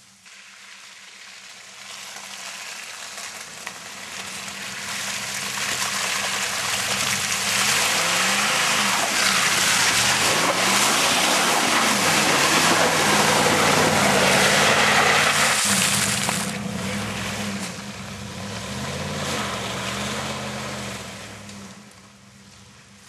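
Chevy Silverado pickup's engine revving up and down repeatedly as the truck churns through a mud hole, its tyres spinning in mud and water. The sound builds to its loudest in the middle, as the truck passes close, then falls away near the end.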